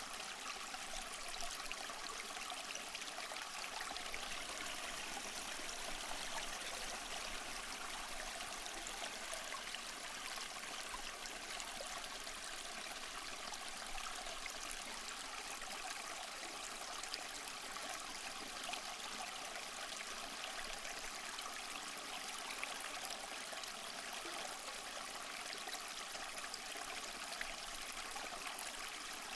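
Small waterfall splashing and trickling over moss-covered rock: a steady rush of falling water with fine splashes.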